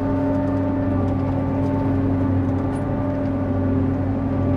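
John Deere 8800i self-propelled forage harvester running steadily under load while chopping grass for silage, heard from inside the cab: a constant drone with a steady whine on top.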